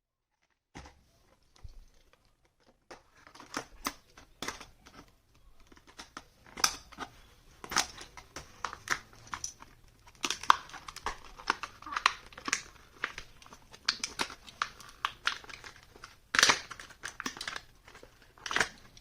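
Plastic-and-cardboard blister packaging of die-cast toy cars being handled and opened: irregular crinkling and tearing with many sharp clicks and crackles, starting about a second in.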